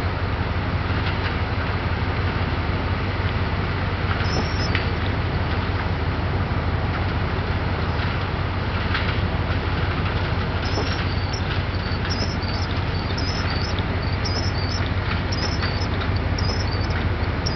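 John Deere combine with a corn head harvesting field corn: its engine and machinery running steadily, a loud constant drone with a strong low hum.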